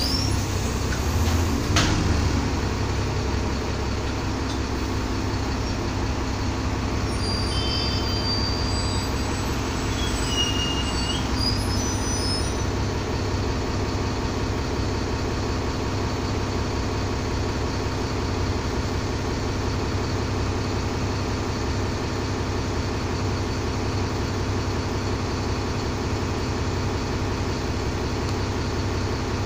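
Diesel engine of an ex-London Alexander ALX400 double-decker bus running steadily, heard from inside the lower deck. There is a single knock about two seconds in and a few brief high squeaks between about seven and twelve seconds in.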